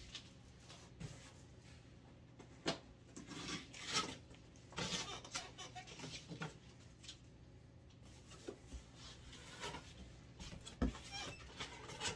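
Packing tape being pulled off a cardboard moving box in short, faint rips, with cardboard rustling and a few light knocks; near the end the box flaps are folded open.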